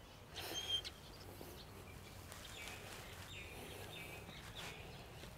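Faint open-air ambience with a few short, high bird chirps scattered through it.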